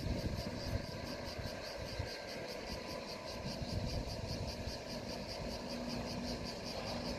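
Passenger train running in the distance, a low uneven rumble with a faint steady hum coming in about halfway through. Cicadas pulse evenly several times a second over it.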